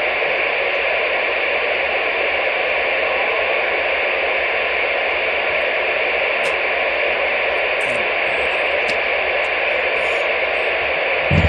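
Steady hiss of static from a CB radio receiver with the squelch open and no station transmitting.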